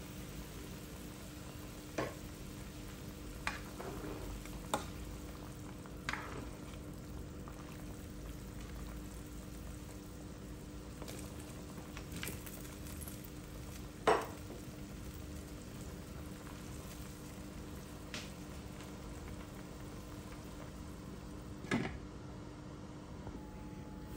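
Chicken tinola broth boiling hard in a stainless steel pan, a steady bubbling hiss. A handful of sharp clinks and knocks of utensils and cookware are scattered through it, the loudest about halfway.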